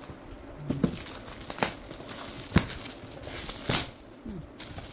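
Shiny metallic foil gift wrap being crinkled and torn off a box by hand, in a handful of sharp crackling rips and rustles.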